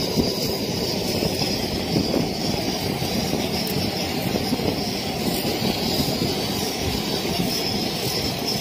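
Steady rumbling wind noise on the microphone, with no distinct events.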